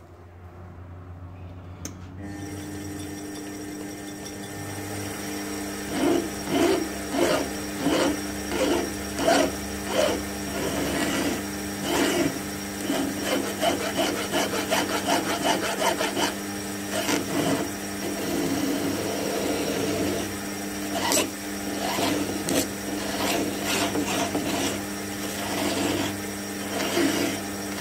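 A small metal lathe spins up and runs with a steady hum. From about six seconds in, a flat file is drawn across the spinning electroformed copper cone in repeated rasping strokes, a little over one stroke a second.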